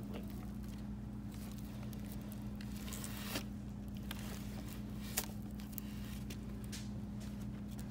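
Rolls of wrapping paper being handled: a few light knocks and rustles, the sharpest near the middle, over a steady low hum.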